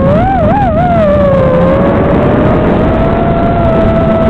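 FPV quadcopter's brushless motors and propellers whining, the pitch rising and falling a few times in the first second, then holding nearly steady.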